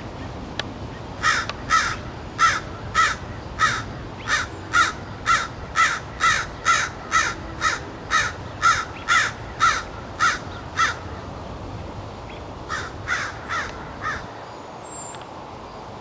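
A hawk calling loudly over and over, about two calls a second, some twenty in a row; after a short pause it gives four more calls.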